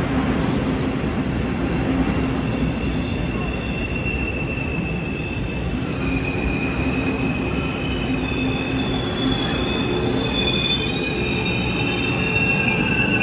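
Taiwan Railways Tze-Chiang express train pulling into the platform, a steady rumble under a high, wavering squeal that grows stronger about halfway through as the train slows.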